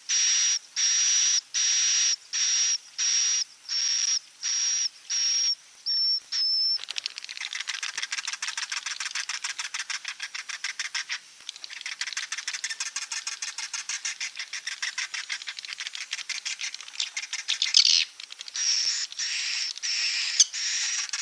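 Edible-nest swiftlet recording of the 'inap' (roosting) call, the kind played in swiftlet nest houses to make the birds stay. It opens with short, high calls repeated about twice a second, turns into a dense, rapid chittering twitter about seven seconds in, and the repeated high calls come back near the end.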